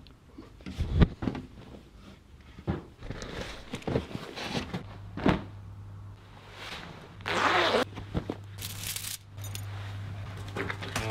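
Someone getting dressed: clothing rustling, scattered knocks and handling thuds, and short rasps, the longest a little past halfway, as a leather jacket and a metal pendant are put on. A low steady hum comes in about five seconds in.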